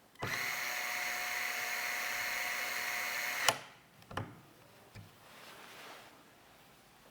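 Small electric screwdriver whirring at a steady pitch for about three seconds, driving a screw, then stopping with a sharp click; a second click follows shortly after.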